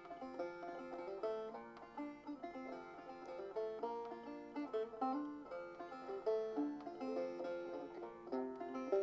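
Banjo played solo: a flowing instrumental melody of plucked notes, each ringing briefly before the next.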